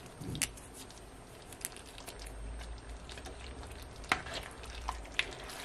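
Thick stir-fry sauce simmering uncovered in a skillet, with a soft steady bubbling and scattered small pops, a few louder ones near the end.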